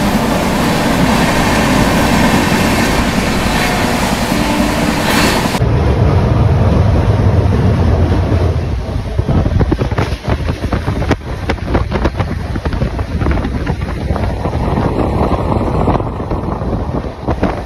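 Passenger train moving slowly, heard from on board: a rushing noise at first, then, after an abrupt change about five seconds in, a low rumble with irregular wheel clicks over the rail joints.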